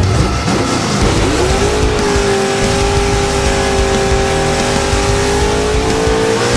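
Naturally aspirated 331 small-block Ford V8 in a Fox-body Mustang, heard from inside the cabin. It revs up quickly over the first second or so, then holds steady at high revs for several seconds, edging a little higher near the end.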